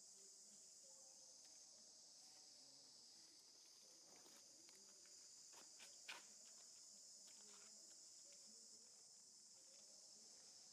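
Faint steady high-pitched insect drone, with a few soft clicks near the middle, the loudest about six seconds in.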